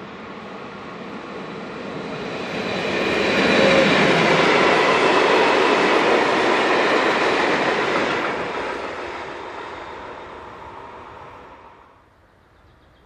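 Short freight train hauled by an ÖBB Class 1144 electric locomotive passing at speed: the rush of wheels on rail and open box wagons grows to its loudest about four seconds in, holds while the wagons go by close, then fades and cuts off near the end.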